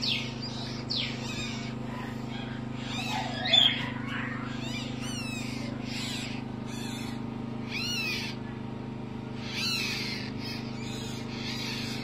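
Parrot chick's short, high chirps, about one a second, some falling and some rising in pitch, the loudest about three and a half seconds in, over a steady low hum.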